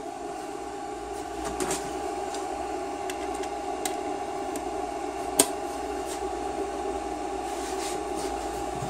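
Handheld magnetic induction heater running steadily as it heats a seized transmission bell-housing bolt: a constant whine over a fan-like whir. A single sharp click comes about five and a half seconds in.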